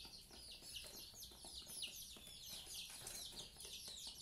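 Faint chirping of several small birds: a steady stream of short, high chirps, each falling in pitch and overlapping one another.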